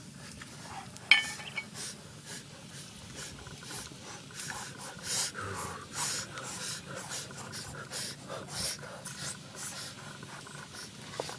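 Small open wood fire crackling under a wok in irregular ticks, with light handling noise as pork skin is pressed into the pan; a sharp clink about a second in is the loudest sound.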